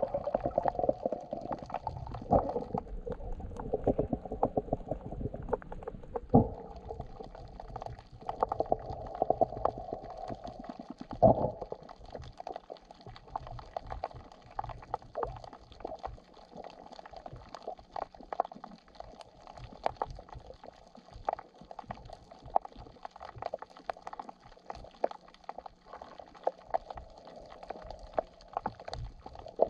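Muffled underwater sound of water moving and bubbling while snorkeling, with many scattered sharp clicks and crackles; busier and louder in the first dozen seconds, then quieter.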